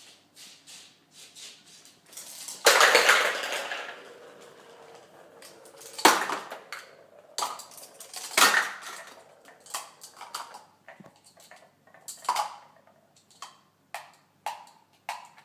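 Irregular clattering knocks of hard objects, with a loud crash nearly three seconds in and sharp knocks about six and eight seconds in.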